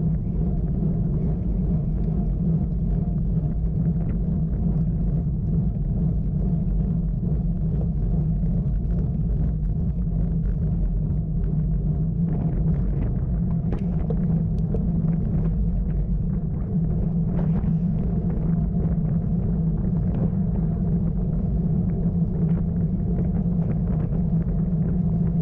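Steady low rumble of wind and road noise on the microphone of a camera carried on a road bike while riding, with a few faint scattered ticks.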